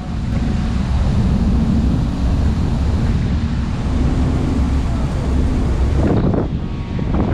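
Wind buffeting the microphone on the open deck of a moving harbour ferry, a steady low rumble with a hiss of water and air above it, easing a little near the end.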